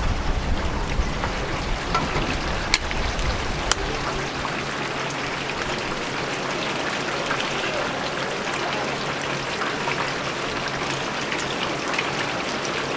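Battered chicken pieces frying in a deep fryer of hot oil: a steady sizzle. In the first few seconds metal tongs clack against the steel tray, with two sharp clicks.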